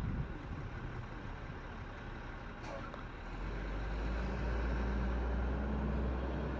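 A steady low engine rumble over outdoor background noise, growing louder about three seconds in.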